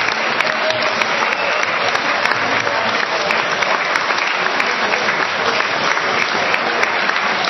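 Audience applauding: dense, steady clapping with no break.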